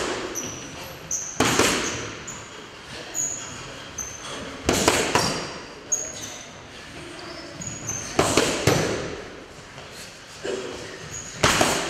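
Boxing gloves punching focus mitts: irregular sharp smacks, several in quick pairs, echoing in a large hall, with short high squeaks of shoes on the floor between them.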